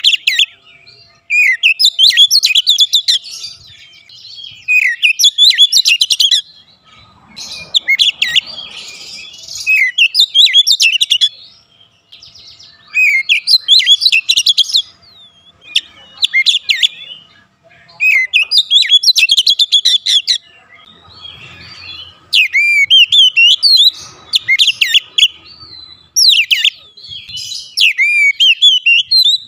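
Oriental magpie-robin singing loudly in full song: a varied run of quick whistles, slurs and chattering notes, delivered in phrases of one to two seconds with short pauses between.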